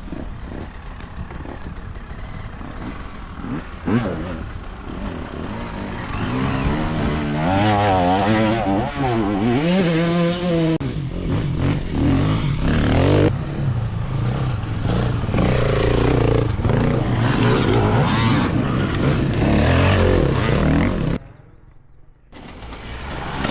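Enduro dirt bike engine revving and pulling under load, its pitch rising and falling repeatedly as the throttle is worked. The sound drops away sharply near the end, then builds again.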